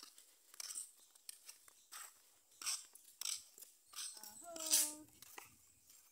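Footsteps crunching on a dirt path at a steady walking pace, about three steps every two seconds. A short pitched call sounds about four seconds in.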